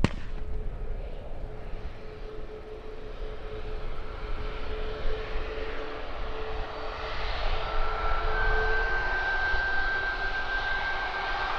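Airliner's engines running and growing louder, a steady whine stepping up in pitch about eight seconds in, over low wind rumble on the microphone.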